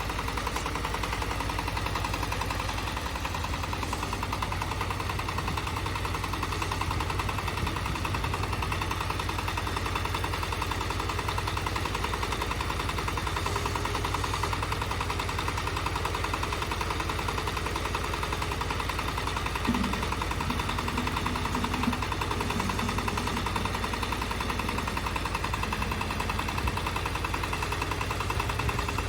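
Engine of a compact crawler tractor running steadily.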